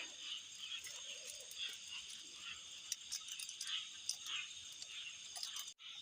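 Night chorus of insects and frogs: several steady high insect trills run on together, with short repeated frog calls over them. The sound cuts out for an instant near the end.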